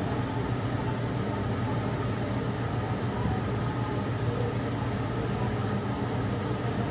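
A steady low mechanical hum, with faint light clicks as roti dough is rolled out with a wooden rolling pin.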